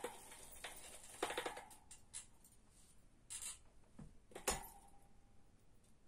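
Bicycle parts being handled during a freewheel repair: a few sparse, irregular metallic clicks and taps. Two of them ring on briefly, about a second in and about four and a half seconds in.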